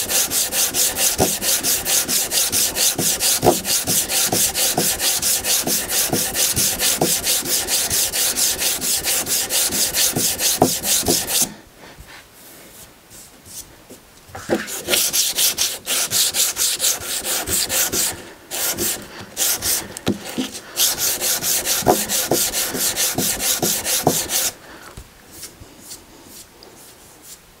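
Hand sanding block with 180-grit sandpaper rubbed quickly back and forth across the end grain of a thick hardwood board. The strokes pause for about three seconds near the middle, then resume and stop a few seconds before the end.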